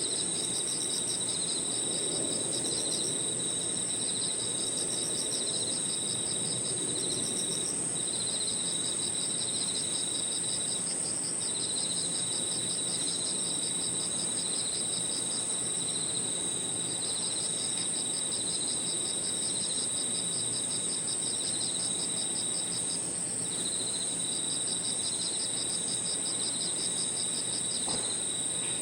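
Chorus of crickets and other insects at dusk: one very high, unbroken trill, with other insects' pulsing trills coming in phrases of a few seconds, broken by short gaps.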